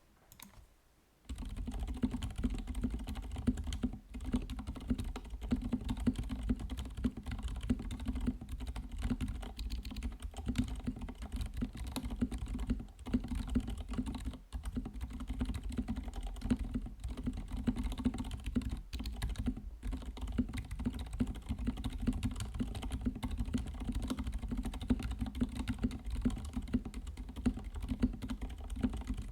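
Continuous typing on a RAMA U80-A mechanical keyboard with lubed Zilents silent tactile switches, a brass plate and Infinikey Cafe keycaps. A dense, steady run of keystrokes starts about a second in, with a couple of brief pauses.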